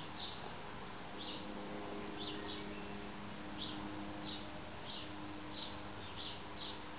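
A bird calling with short, high chirps, repeated irregularly about once or twice a second, over a faint steady low hum.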